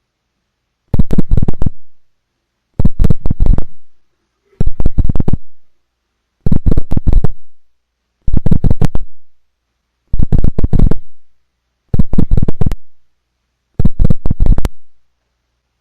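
A refrigerator's strange buzzing signal: eight short rattling bursts, each a quick run of clicks lasting under a second, repeating evenly about every two seconds. The owner takes it for a Morse code signal.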